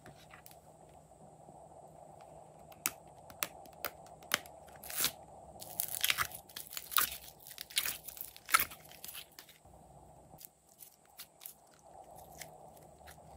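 Crunching and crackling from pink slime and a clear plastic heart-shaped mold being squeezed in the hands: scattered sharp clicks at first, a dense run of crackling crunches in the middle, then only a few soft clicks near the end.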